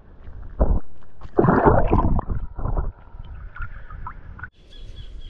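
Muffled water sloshing and gurgling, heard through a submerged camera, as a Murray cod is released from a gloved hand. There are low thumps and a louder rushing surge about a second and a half in, and the sound cuts off sharply near the end.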